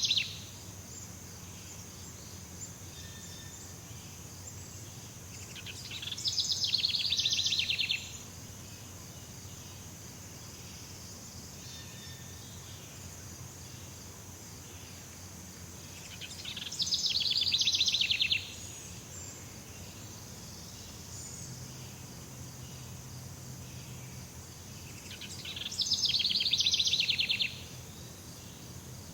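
Jungle ambience: a steady high-pitched insect drone, with a loud, rapidly pulsing trill three times, about ten seconds apart. Each trill swells over about two seconds and then cuts off sharply.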